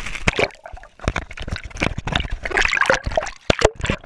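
Water splashing and sloshing against a chest-mounted GoPro's waterproof housing as the wearer wades in and the camera goes under the surface near the end, heard as a run of irregular knocks and splashes.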